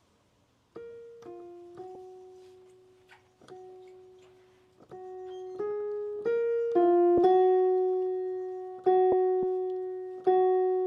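A slow single-note melody on a piano, about a dozen notes struck one at a time and left to ring out, getting louder about halfway through.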